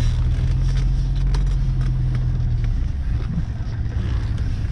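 Engine and road noise of an old Mercedes-Benz car driving, heard from inside the cabin. The engine note holds steady, then drops a little in pitch about two and a half seconds in.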